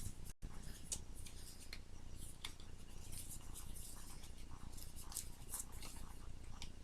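Faint, irregular small clicks and scrapes of fingers working open the tight cardboard tuck box of a new deck of playing cards.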